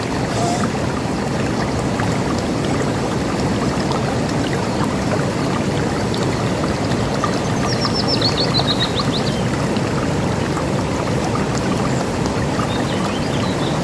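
A river rushing steadily. About seven seconds in, a bird sings a quick trill of notes falling in pitch, and faint chirps follow near the end.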